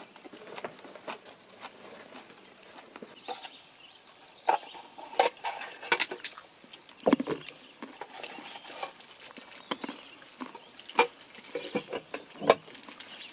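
Pistachios being cracked open by hand and their shells dropped on the table: a string of irregular sharp cracks and clicks, with louder ones from about four seconds in and one duller knock midway.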